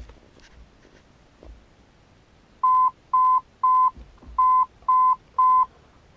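Dashboard chime of a 1995 Jeep Grand Cherokee sounding six short, high, evenly spaced beeps over about three seconds, starting about two and a half seconds in, while the Vehicle Information Center is set to reset the service reminder. A few faint clicks of the dash buttons come before the beeps.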